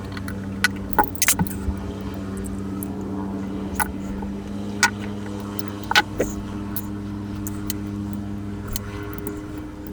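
Small metal tools clicking and tapping against the parts of a Casio analog wristwatch being taken apart, a few sharp clicks spaced irregularly, over a steady low hum.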